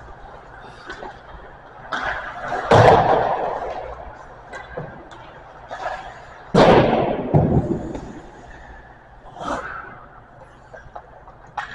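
Hockey pucks being shot and striking hard, a series of sharp knocks with two loud bangs about three and six and a half seconds in, each ringing on and echoing around the ice rink.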